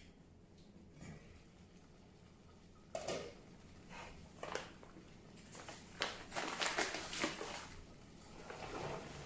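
Quiet kitchen handling sounds at the stove: scattered short knocks and clatters, the first about three seconds in and busiest a little past the middle.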